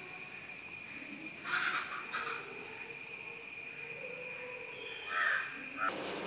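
Crow cawing: two harsh caws about a second and a half in, and two more near the end.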